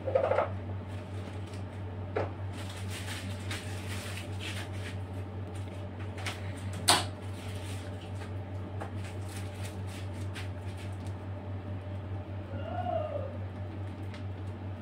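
Steady low hum with scattered light clicks and knocks of handling, a sharper click about seven seconds in, and a short wavering tone near the end.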